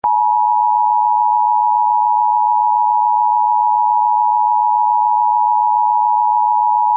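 Emergency Alert System attention tone: a loud, steady electronic tone at one pitch that starts abruptly, the signal that an emergency alert message is about to follow.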